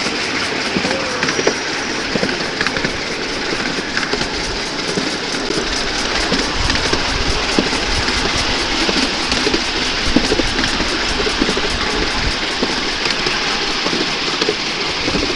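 Miniature ride-on steam train running, heard from on board: a steady rushing noise with scattered clicks of the wheels on the rails, and a low rumble joining about five seconds in.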